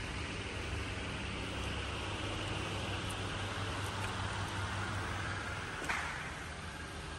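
Steady background hum and hiss of a workshop, like a fan or machine running, with a single sharp click near the end.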